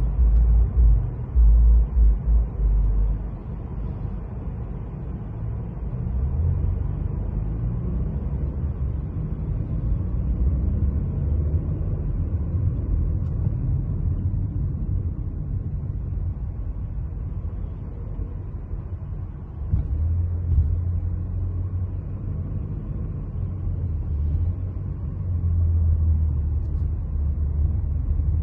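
A car on the move: a steady low rumble of road and engine noise, with louder low pulses in the first few seconds.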